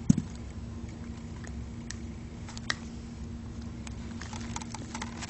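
Faint scattered clicks and taps of small plastic toy figures handled and set down on a carpet, with a sharper click right at the start, over a steady low hum.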